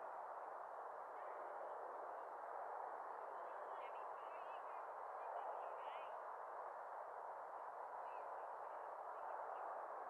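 Steady, faint rushing background noise, with faint, high, wavering chirps scattered through the middle and again near the end.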